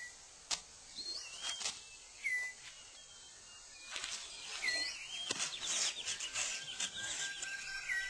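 Rainforest birds calling: short whistled calls, each a quick bend in pitch, come about five times over scattered sharp clicks and rustles. In the second half a rapid high trill and a thin steady whistle join in.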